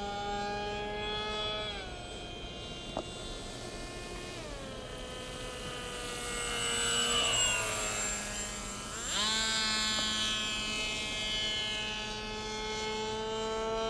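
Electric RC plane's motor and propeller whining in flight, the pitch stepping down twice as the throttle is eased back and climbing sharply about nine seconds in as it is opened up. It grows louder briefly about seven seconds in as the plane makes a low pass.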